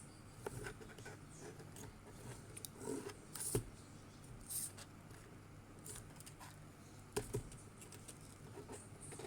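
Small plastic robot parts and cables being handled and fitted together: scattered light clicks and brief rustles, with a sharper click about three and a half seconds in and another near seven seconds.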